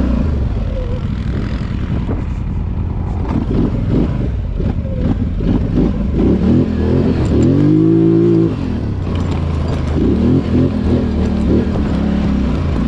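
Off-road vehicle engines running. One engine revs up and back down about eight seconds in, the loudest moment.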